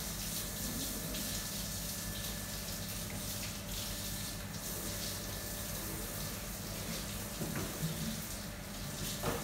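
Steady running water, like a tap into a sink, over a low steady hum, with a few faint knocks near the end.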